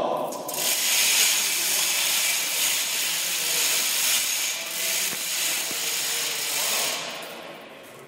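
Heavy chains being pulled down through a hoist to lift a truss: a long, harsh rasping rattle that starts about half a second in and fades away near the end.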